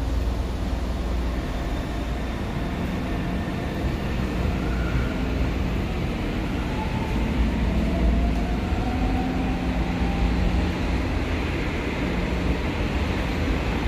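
Steady rumble of a São Paulo Metro train heard inside the car as it runs between stations: wheels and running gear on the track, with a faint whine that rises a little about halfway through.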